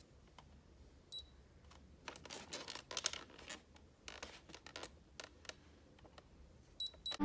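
A few short, high electronic beeps, one about a second in and two near the end, with scattered clicks and handling taps in between.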